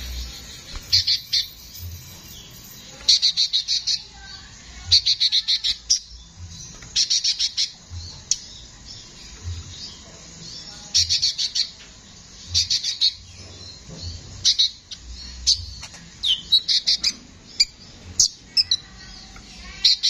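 A caged male sunbird (the 'Konin' kolibri) singing a rough, harsh song. It comes as repeated bursts of rapid, sharp, high chips and trills, a burst every second or two.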